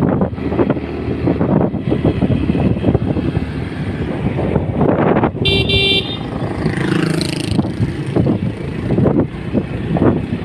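Motor vehicle running with a continuous rough rumble, and a short horn toot about halfway through.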